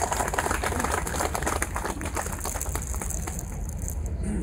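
Close rustling and crackling handling noise on the microphone, dense irregular clicks over a steady low rumble, thinning out after about two seconds.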